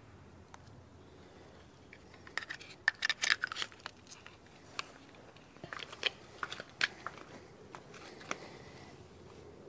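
Handling noise: scattered sharp clicks and rustles in two clusters, about two and a half seconds in and again about six seconds in, with a few single clicks between.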